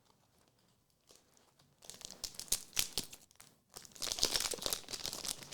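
Trading-card pack wrapper crinkling and being torn open, in irregular bursts with a denser stretch near the end.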